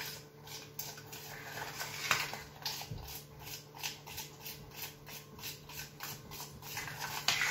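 A spoon stirring thick pap in a stainless steel saucepan, making soft, repeated scrapes and taps against the pan, with a steady low hum underneath.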